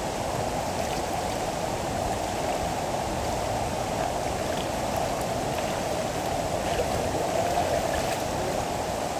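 River water rushing over rocks: a steady, even rush with a few faint ticks and splashes in it.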